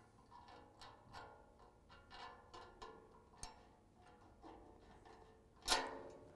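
Button head bolts and small metal parts clinking against a steel bumper: a string of light, irregular ringing tings, then one louder metallic clank near the end.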